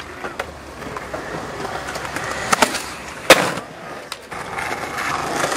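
Skateboard wheels rolling over concrete, with several sharp clacks of the board striking the ground, the loudest just past halfway.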